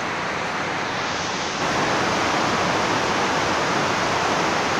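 Steady rushing noise with no distinct tones or knocks, growing a little louder about a second and a half in.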